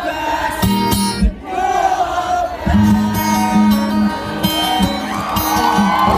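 Live rock band performing: strummed guitar with bass and singing, with crowd noise mixed in.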